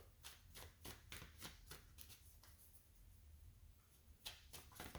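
Tarot cards being handled and shuffled, a faint run of soft card strokes about three a second that stops about two and a half seconds in and starts again near the end.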